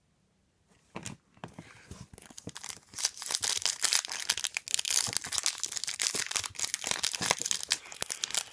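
Foil trading-card pack wrapper crinkling and tearing as it is handled and opened close to the microphone. It starts about a second in and gets louder from about three seconds in.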